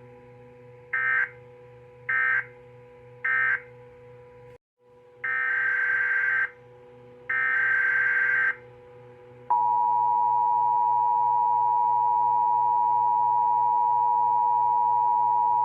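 Emergency Alert System tones off NOAA Weather Radio. First come three short, harsh, buzzing SAME data bursts about a second apart, the end-of-message code closing the previous alert. After a brief dropout come two longer data bursts, the header of the next alert. About nine and a half seconds in, the steady two-tone EAS attention signal begins and holds, over a faint steady hum from the receiver.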